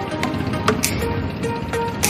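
Electronic background music with sharp percussion hits and short held synth notes, over a steady low rumble.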